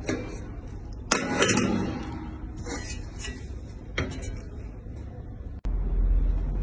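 Metal clinking and clattering, with sharp knocks every second or so. Near the end it cuts off suddenly and is replaced by a steady low rumble.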